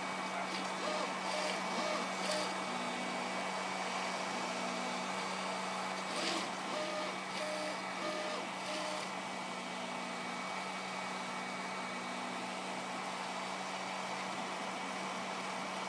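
Bukobot 3D printer running fast print moves: its stepper motors give short pitched tones at a few different pitches that start and stop as the print head changes direction, over a steady hum, with a few light clicks in the first half.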